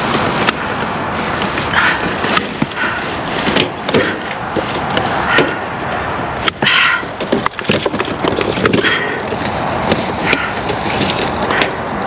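A grabber tool rummaging among plastic bottles, cartons and plastic bags in a dumpster: irregular clatters, knocks and scrapes mixed with rustling plastic.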